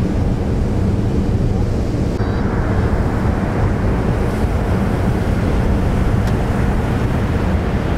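Sea surf breaking and washing in, with wind rumbling on the microphone.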